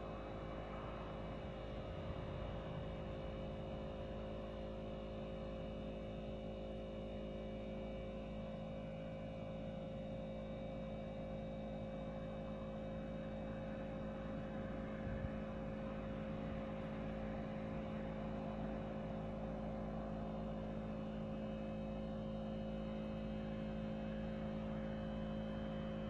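Steady machine hum made of several constant tones, holding even throughout and then cutting off suddenly at the very end.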